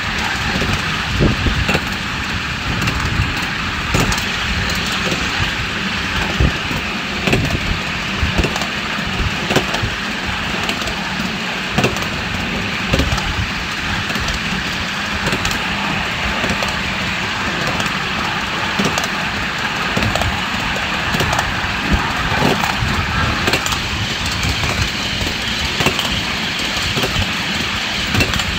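Miniature live-steam train running along the track with the rider aboard: a steady rumble and hiss of wheels on the rails, broken by irregular clicks and knocks.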